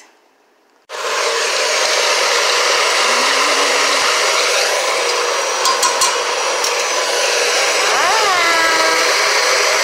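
NutriBullet blender running, blending frozen fruit and almond milk into a smoothie. The motor starts suddenly about a second in and then runs steadily and loudly.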